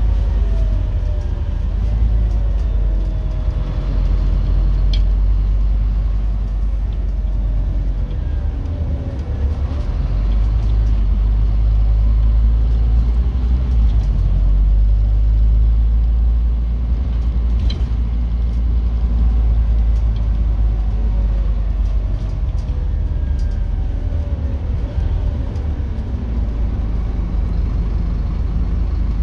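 Scania N270UB OmniCity bus heard from inside the saloon while under way: its five-cylinder diesel and drivetrain give a deep steady rumble over road noise, with a fainter whine that rises and falls as the bus speeds up and slows. A couple of brief rattles come from the body.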